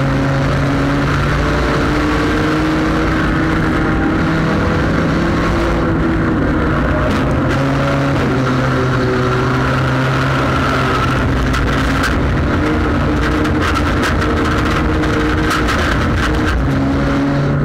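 Four-cylinder engine of a front-wheel-drive sport compact race car running hard during a race, heard from inside the car: a loud, steady engine note whose pitch rises and falls a little through the turns. Sharp clicks and rattles come through in the second half.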